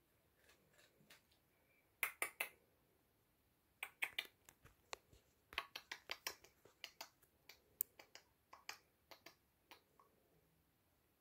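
Sharp, short clicks in quick irregular runs: three close together about two seconds in, then a longer run of many more, at times about five a second, that stops about a second before the end.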